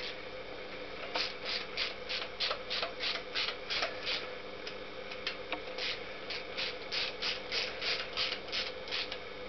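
Hand ratchet wrench clicking in even strokes, about four clicks a second, in two runs with a short pause between them.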